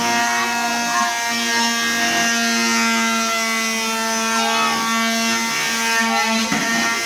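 Electric sander running steadily as it sands a wooden desk top, a constant motor hum with a higher whine above it.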